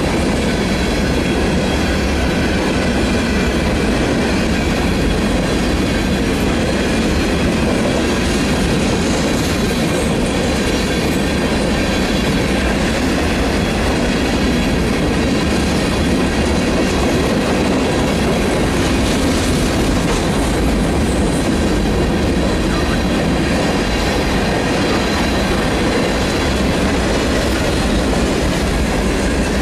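Covered hopper cars of a sand train rolling past: a steady, unbroken rumble and clatter of steel wheels on the rails.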